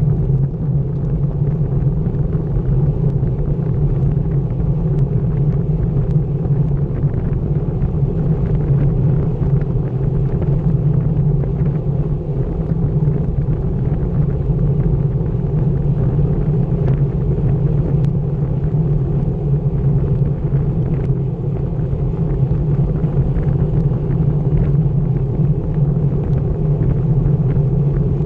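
Steady wind buffeting on the microphone of a bike-mounted action camera riding at about 23 mph, mixed with the rumble of road-bike tyres on asphalt.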